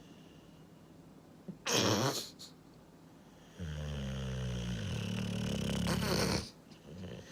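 German boxer dog snoring in its sleep: a short noisy breath about two seconds in, then one long, low snore lasting about three seconds.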